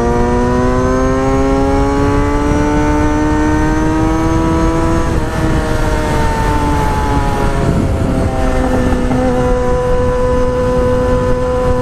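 Motorcycle engine under way, its pitch climbing slowly for about five seconds, dropping at an upshift, then holding steady, over a low rush of wind.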